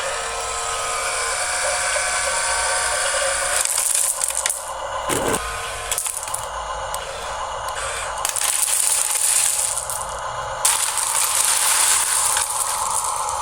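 Radio-controlled model construction truck running, with the whine of its small electric motor and gears and irregular rattling and clicking of its load of bricks.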